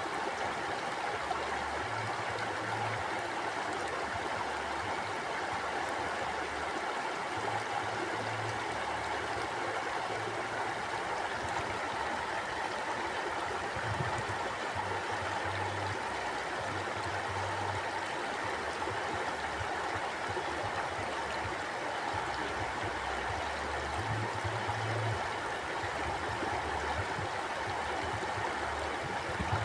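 Mountain river flowing: a steady, even rushing of water, with a low rumble that swells and fades every few seconds.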